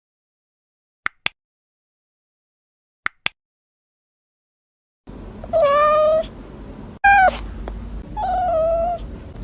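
A kitten meowing, three high drawn-out meows starting about five seconds in. Before them, two pairs of brief high chirps sound about two seconds apart.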